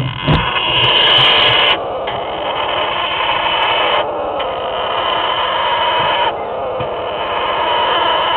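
Parrot chicks giving continuous raspy begging calls, a harsh hissing chorus that shifts in loudness every couple of seconds.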